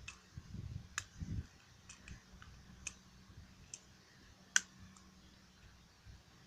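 Small plastic transforming toy parts clicking and snapping together as they are fitted and locked by hand: about eight sharp, irregular clicks, the loudest about four and a half seconds in, with soft handling bumps in the first second and a half.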